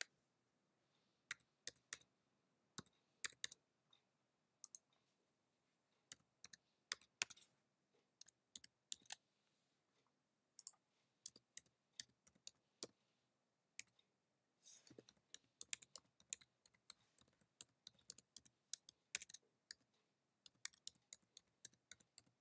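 Faint keystrokes on a computer keyboard: typing in irregular spurts with short pauses, quickening in the second half.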